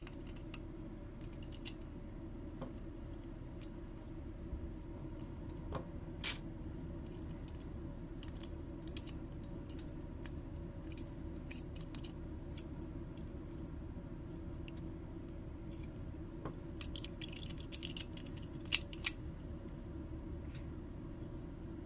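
Scattered light metallic clicks and clinks of small metal parts and tools being handled, several in a quick cluster around two-thirds of the way through, over a steady low hum.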